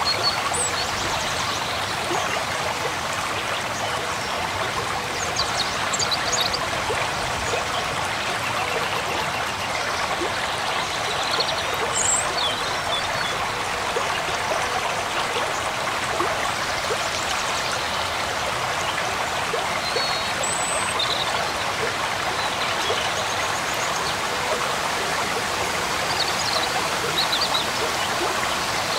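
Shallow mountain stream rushing and splashing over and between boulders in small cascades, a steady, unbroken rush of water.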